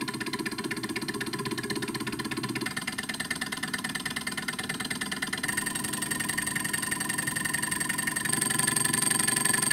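Homemade two-syringe Stirling engine running, its glass-syringe pistons and flywheel making a fast, even mechanical clatter that grows slowly louder.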